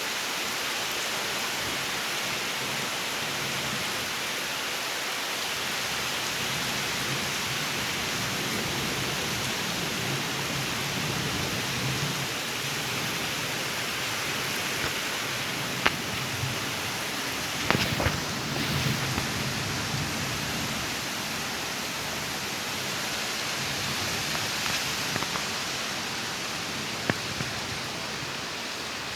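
Steady rain falling, with a few sharp taps of drops close by and low thunder rumbling twice.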